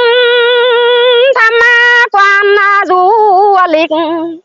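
A woman singing a Mường folk song unaccompanied: long held notes with a wavering vibrato, sung in several short phrases with brief breaks between them.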